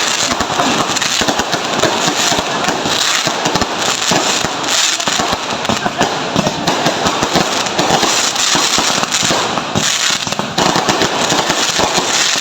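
Fireworks and firecrackers going off without a break: a dense, continuous crackle of many small bangs, loud throughout.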